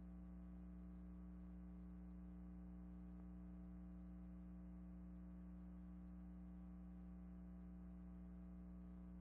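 Near silence with a faint, steady electrical hum of several even tones that never changes.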